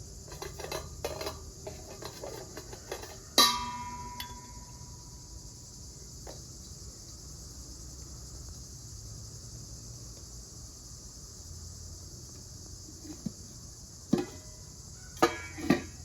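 Steady high chirring of crickets, with light clicks and knocks of cooking utensils and dishes being handled: one loud clink that rings on briefly about three seconds in, and a few sharp knocks near the end.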